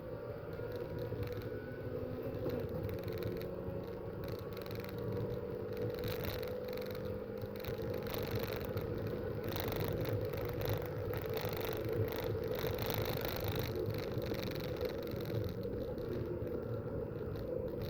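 Race car engine running at steady high revs, its pitch drifting only slightly, over rough, distorted road and wind noise.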